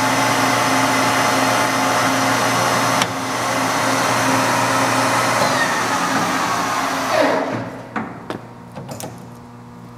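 Acer Dynamic 1760G geared-head engine lathe running under its 7.5 HP main motor, a steady gear whine of several tones with a click about three seconds in. About seven seconds in it is switched off and the spindle winds down with a falling pitch, followed by a few knocks and clicks.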